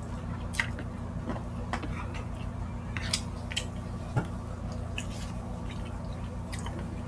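Close-up eating sounds: chewing and lip smacks, with the wet squish of bare fingers mixing rice into a saucy meat stew, heard as scattered short clicks over a steady low hum.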